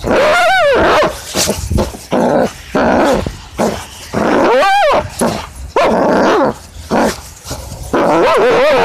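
A dog making loud, drawn-out growling, whining calls with a wavering pitch, about six in a row, each under a second long, as in a game of tug.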